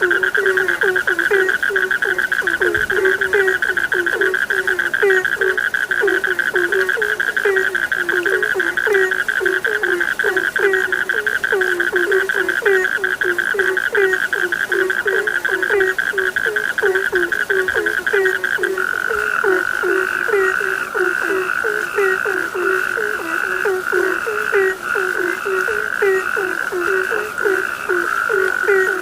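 Frogs calling in chorus: low croaks repeating about twice a second over a continuous high, fast trill, which turns rougher and less even about two-thirds of the way through.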